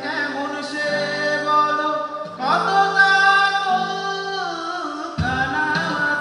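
A man singing long, held notes with vibrato through a microphone, backed by acoustic guitar. A low percussion beat comes in about five seconds in.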